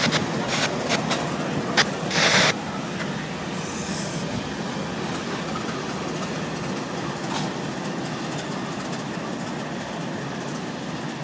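Freight train led by Norfolk Southern diesel locomotives rolling past below, a steady rumble with several sharp knocks in the first two seconds and a short louder burst of noise about two seconds in.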